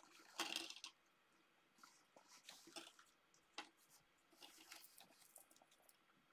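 Faint, scattered rustling and light clicks of crafting supplies being handled and sorted through on a desk, with the most distinct rustle about half a second in.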